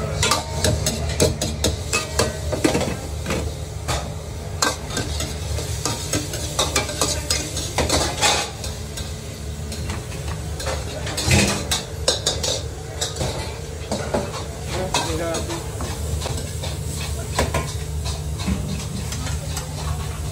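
Stir-frying in steel woks: a metal ladle clanking and scraping against the wok as food sizzles, over a steady low hum. One louder clatter comes about eleven seconds in.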